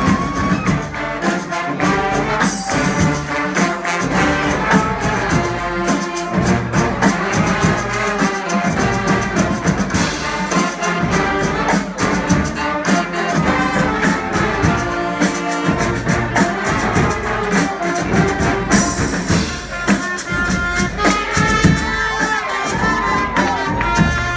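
HONK!-style street brass band playing live: horns sounding melody lines over a steady drum beat.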